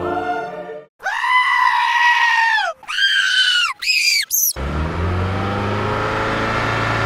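Screaming goat meme sound played four times in a row, each scream pitched higher and shorter than the one before. About four and a half seconds in, a steady low drone takes over.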